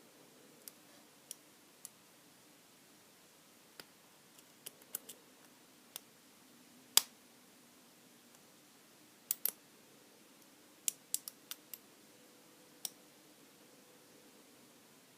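Scattered small metallic clicks from a lock pick and tension wrench working the pin stack of a Brady Abus 32.5 mm brass padlock. They come irregularly, with one louder click about seven seconds in and a quick run of clicks a few seconds later.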